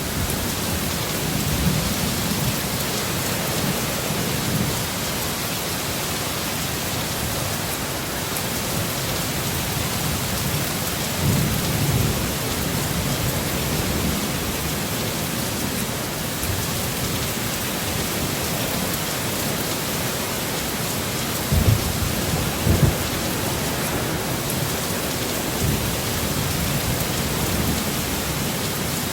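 Heavy rainstorm: a steady downpour hiss with low rolling rumbles of thunder. There are two sharp low thuds about three-quarters of the way through.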